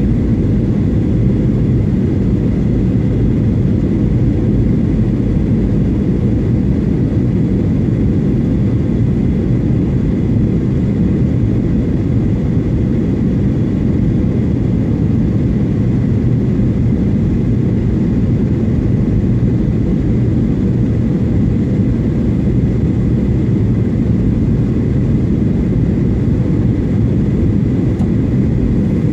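Jet airliner cabin noise heard from a window seat in flight: the engines and the air rushing past the fuselage make a loud, steady, low rumble, with a faint steady high tone above it.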